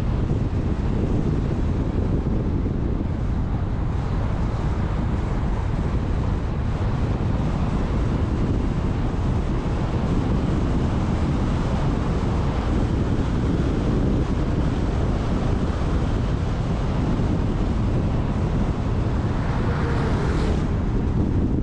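Steady wind noise on the microphone with low road rumble from a car driving along a mountain road. Near the end, an oncoming quad bike passes with a brief swell that rises and falls away.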